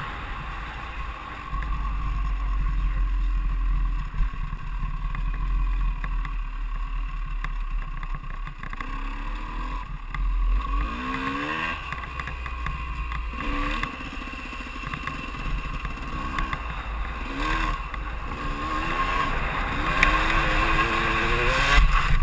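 2001 KTM 200 EXC two-stroke dirt bike engine running under way, its pitch rising and falling repeatedly as the throttle is worked, revving harder near the end. Heavy wind buffeting on the helmet-camera microphone rumbles underneath.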